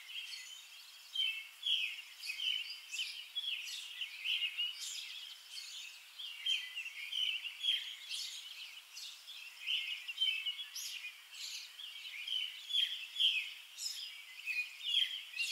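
Small birds chirping: a dense chorus of short, high chirps and twitters overlapping one another.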